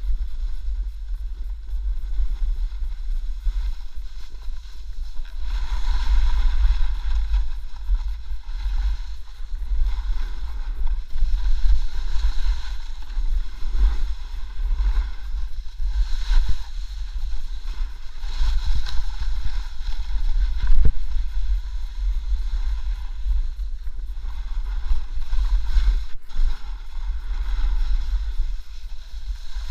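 A snowboard sliding and carving through snow, its base and edges hissing and scraping in waves as the rider turns, over a steady low rumble of wind on a helmet-mounted camera's microphone.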